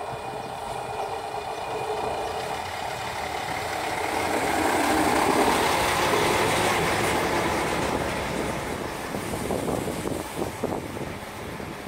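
DB class 672 (LVT/S) diesel railbus running into the platform and past, its engine and wheels growing louder to a peak about halfway through and then easing off. Near the end come a run of sharp clicks from the wheels on the track.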